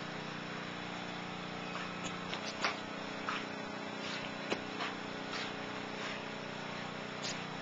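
Scattered sharp clicks and taps as a Rottweiler mouths and paws a small plastic toy on concrete, over a steady low hum.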